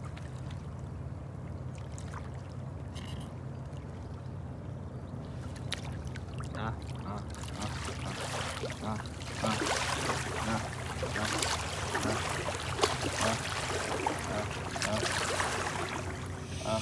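Water splashing and lapping, growing busier about seven seconds in, over a steady low hum.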